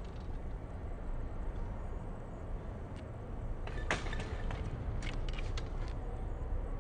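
BMX bike ridden on brick paving: a steady low rumble, with a few sharp clicks and knocks from the bike. The loudest knock comes about four seconds in, and a cluster of smaller ones follows about a second later.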